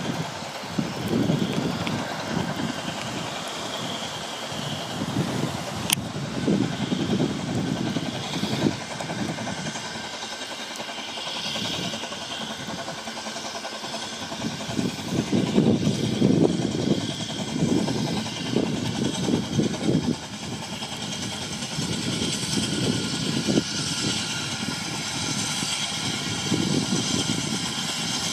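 Gusting wind buffeting an unshielded camera microphone, coming and going every second or so, over a steady hiss of wind and rain. A single sharp click about six seconds in.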